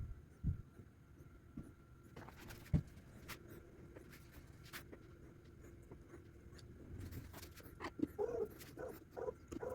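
Quiet handling of fan motor parts: a couple of soft knocks and scattered clicks, then a quick series of short squeaks over the last two seconds.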